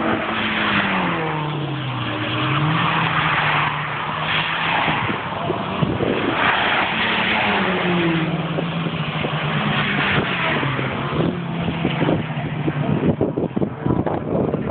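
Track-day cars braking hard at the end of a straight: the engine note falls as the car slows, then steps up as the driver changes down a gear, and this happens twice, for two cars in turn.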